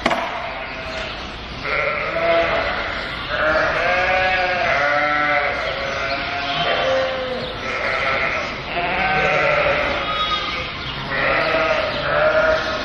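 Lambs and ewes bleating, one high call after another and often overlapping, about ten bleats.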